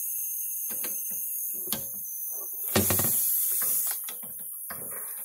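Gas torch flame hissing steadily while heating a rusted wheel hub, with scattered metal knocks and clunks from working a hydraulic puller against the axle. The loudest clunk comes a little under three seconds in.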